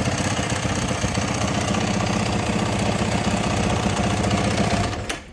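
2022 Yamaha WR450F's single-cylinder four-stroke engine idling steadily in neutral while it warms up, then the sound cuts off suddenly near the end.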